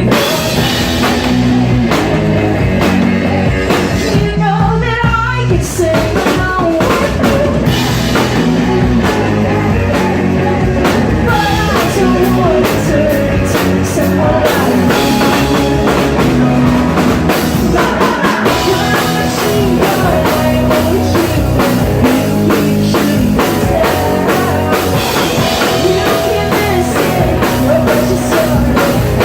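Live rock band playing: electric guitars, bass and a drum kit, with a singer's voice in parts.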